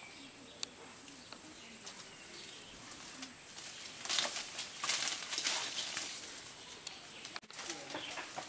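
Leaves and twigs of a mabolo tree rustling and shaking as a bamboo fruit-picking pole with a net at its tip is worked among the branches. The rustling is faint and sparse at first, then comes in a series of loud bursts from about four seconds in.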